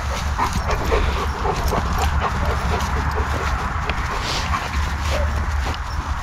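German shepherd whining and giving short soft yips, over a steady low rumble.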